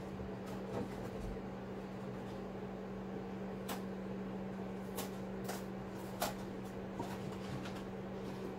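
A steady low electrical hum, with a handful of short sharp clicks scattered through it.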